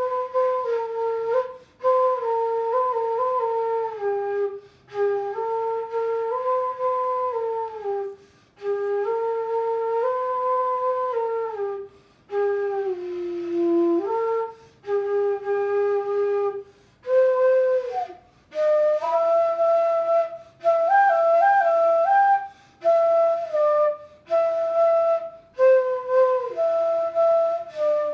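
A flute-type wind instrument playing a simple solo melody in short phrases, with brief breath pauses between them.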